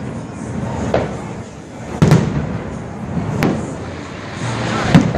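Aerial fireworks bursting: four sharp bangs about a second or so apart, the loudest about two seconds in, over a steady low rumble.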